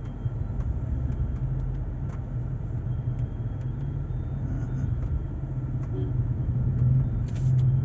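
A car's engine and tyres rumble steadily, heard from inside the cabin, with scattered faint ticks over the top.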